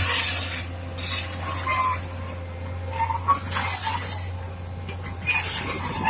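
Metal tools scraping and clinking against rock in four short bursts, over a steady low hum.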